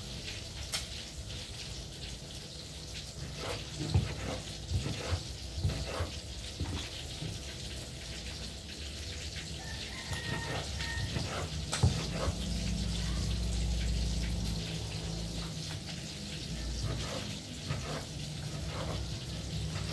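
Large kitchen knife chopping on a wooden chopping board: irregular knocks of the blade on the wood, a cluster of them a few seconds in and a sharp one about twelve seconds in.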